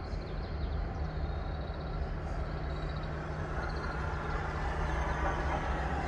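Steady low outdoor rumble and hiss with a constant low hum, swelling slightly near the end, and a few faint short high chirps.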